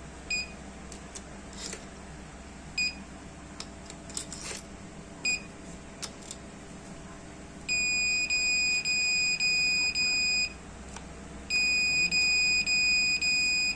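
Arduino RFID door system's piezo buzzer: three short high beeps about two and a half seconds apart as registered cards are read, then two long beeps of about three seconds each, the warning alarm for an unregistered stranger's card. A few faint clicks fall between the beeps.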